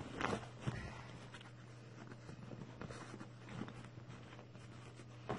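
Fabric motorcycle tank bags being handled and packed: a few short rustles and scuffs of cloth and contents, over a steady low hum.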